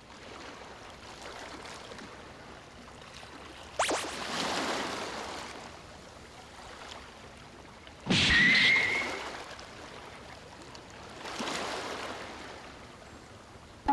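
Waves breaking and washing up on a shore: three surges that swell and fade a few seconds apart. The loudest surge, just past the middle, carries a short high whistling tone.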